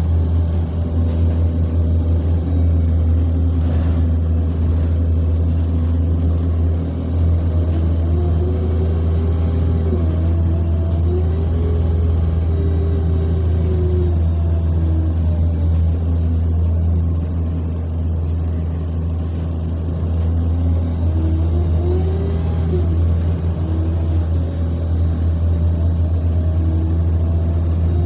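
Bus engine and drivetrain heard from inside the passenger saloon: a steady low drone with a whine that rises and falls in pitch as the bus speeds up and slows, twice.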